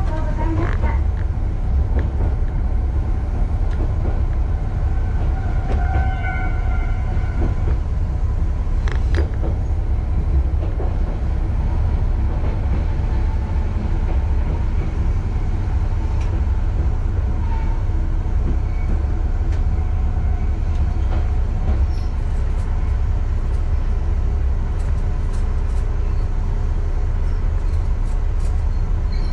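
Kishu Railway KR301 single-car diesel railcar rumbling along at a slow crawl, its engine and running gear giving a steady low drone, with scattered light clicks in the last several seconds as it nears the end of the line.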